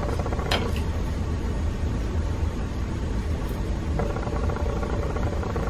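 Steady low background hum, with a single light click about half a second in.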